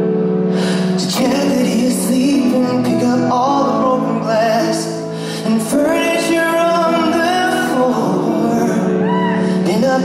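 A man singing live into a microphone over a sustained instrumental backing, with long held notes that waver in vibrato.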